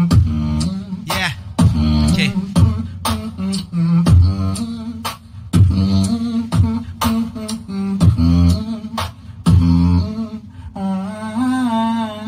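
Solo beatboxer performing into a handheld microphone: sharp kick and snare sounds over a deep bass line, with a wavering sung tone near the end.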